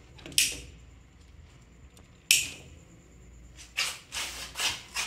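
Short swishing and rustling noises of cloth brushing against a handheld phone as it is pushed past a hanging sheet. There are two sharp swishes, then a quick cluster of several near the end.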